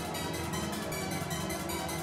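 Music with a steady, fast beat and sustained tones; no speech.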